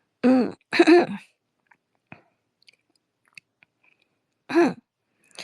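A woman's voice close to a phone microphone: two short voiced sounds in the first second and another about four and a half seconds in. Between them come a few faint mouth clicks, the saliva and mouth noises of talking right into the mic.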